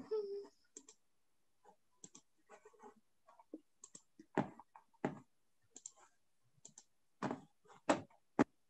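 Computer keyboard typing and mouse clicks: irregular short taps and clicks, the sharpest a little after four seconds in and in a cluster near the end.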